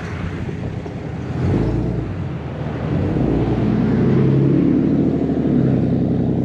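A motor vehicle's engine running close by: a steady low hum that grows louder about a second and a half in and stays strong through the rest.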